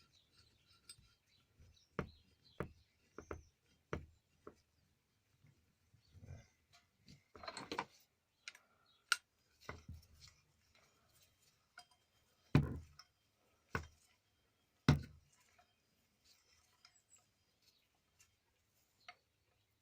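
Scattered clicks and light knocks of small metal sprinkler parts (seals, copper washer, spring) being handled and pushed into the sprinkler body during reassembly, with three louder knocks in the second half.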